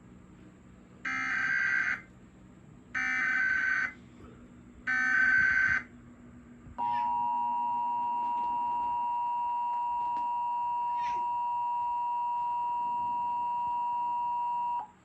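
Emergency Alert System broadcast header: three one-second bursts of SAME digital header data about two seconds apart, followed by the EAS two-tone attention signal held steady for about eight seconds and then cut off sharply.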